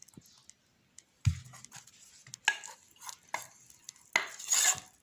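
Utensils knocking and scraping against a small cooking pot as ingredients are added and stirred: a low knock about a second in, then a run of short clinks and scrapes.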